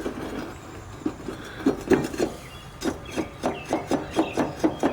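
Repeated light metal clunks, about three a second, starting about a second and a half in: a mower deck blade being rocked on its spindle, knocking because the worn blade fits loosely.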